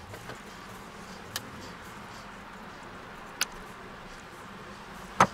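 Three sharp metallic clinks of a metal spoon against an open tin can as sweetcorn is spooned onto a pizza, the loudest near the end, over a steady low hum.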